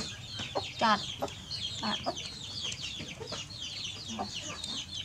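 Chickens clucking in short scattered calls, over a continuous chatter of rapid high chirps.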